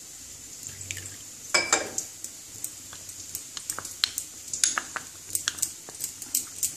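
A metal spoon stirring a wet spice paste in a glass bowl: irregular clinks and scrapes of the spoon against the glass, the loudest about one and a half seconds in. A faint steady sizzle of whole spices frying in oil runs underneath.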